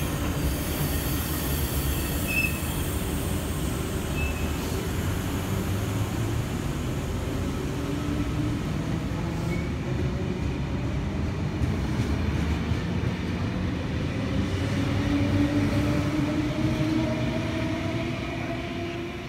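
A train running on the rails with a steady heavy rumble, a few short high wheel squeals near the start, and a whine that rises in pitch over the second half, loudest a few seconds before the end.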